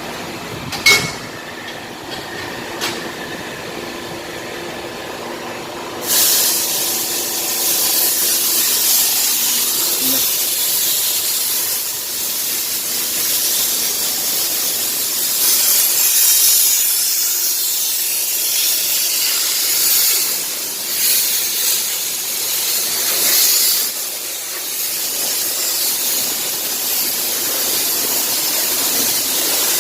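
A short sharp click about a second in, then from about six seconds a long, loud hiss of a pressurised spray, surging and dipping in strength as it goes.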